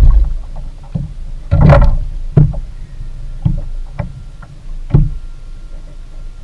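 Irregular knocks and thumps against a kayak, about one a second, with a longer, louder scuffle about two seconds in, as a spotted seatrout is lifted from the water and unhooked in the angler's lap.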